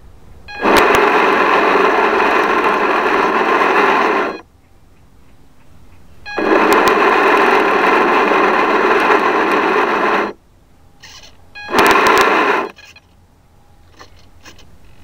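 Motor of a radio-controlled model boat, heard from a camera on board, running in three bursts: two of about four seconds and a short one near the end. Each burst starts and stops abruptly as the throttle is opened and closed.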